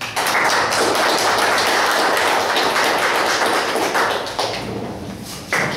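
Audience applauding, starting suddenly, easing off about five seconds in, then swelling again near the end.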